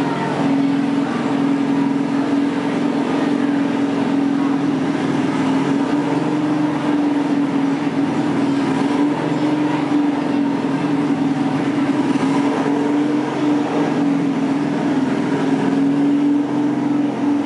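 Riding lawn mower engine running steadily at high throttle under load while pulling the weight in a pull, holding an even, unwavering note.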